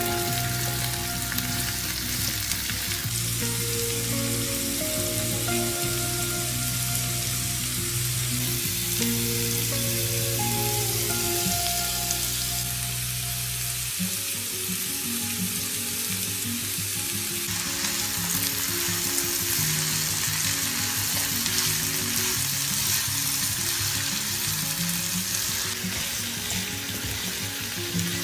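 Julienned beetroot, onion and garlic frying in oil in a pan, a steady sizzle, stirred now and then with a silicone spatula. Soft background music with held notes plays underneath; its deep bass drops out about halfway through.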